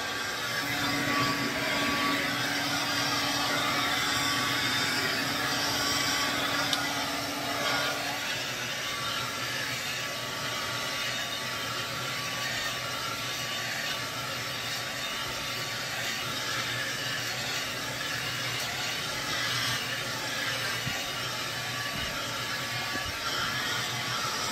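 Handheld hair dryer with a comb attachment running steadily as it blow-dries thick natural hair: a continuous whoosh of air with a faint hum. The hum and some loudness drop away about eight seconds in.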